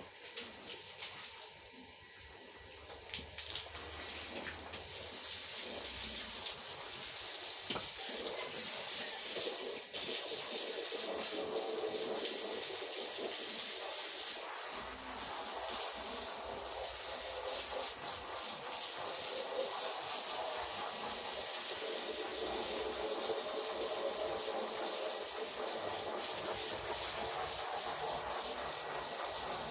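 Rotary polisher brush scrubbing a wet, soapy carpet: a steady wet hiss and swish that builds up over the first few seconds and then holds.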